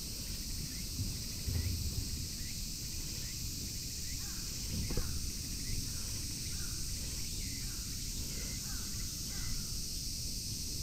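Outdoor summer ambience: a steady high insect drone, short bird chirps repeating through it, and a low rumble underneath.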